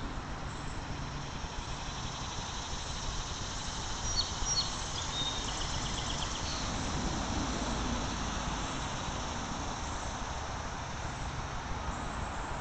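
Steady outdoor background noise, a low rumble and hiss, with a few short high chirps about four to six seconds in.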